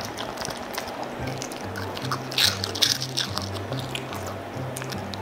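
A Pomeranian dog crunching and chewing a chocolate biscuit snack close to the microphone, with a few sharp crunches around the middle, over background music with a steady repeating bass line.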